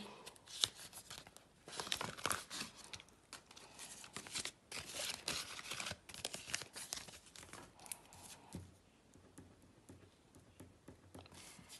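Banknotes and a paper envelope rustling and crinkling as cash is handled and slid into the envelope. Near the end the handling gives way to quieter scratching of a pen writing on paper.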